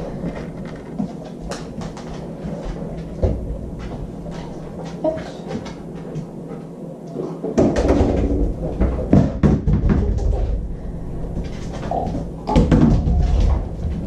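Knocks, thuds and rattles from a refrigerator door being worked open and shut. The loudest stretch comes about eight seconds in, and a second comes near the end.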